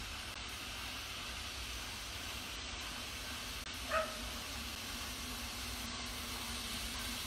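Steam locomotive approaching in the distance: a steady hiss over a low rumble. One short, sharp call cuts through about four seconds in.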